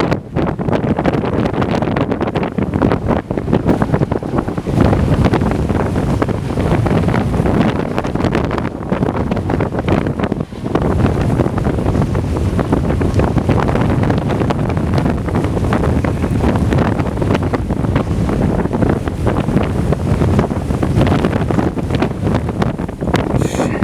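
Strong blizzard wind gusting hard against the microphone: loud, continuous rumbling wind noise, easing briefly about ten seconds in.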